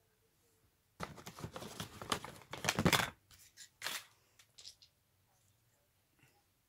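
Rustling and crinkling as makeup products and their packaging are handled, dense for about two seconds, then a few scattered clicks and taps.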